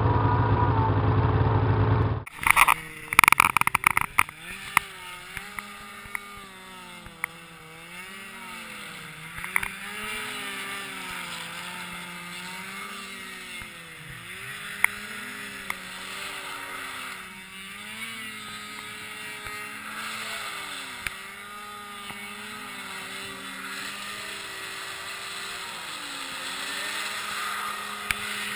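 A loud steady low drone for about two seconds, then a few seconds of loud clattering knocks, then a snowmobile engine revving up and down again and again as the sled circles on the snow, its pitch rising and falling.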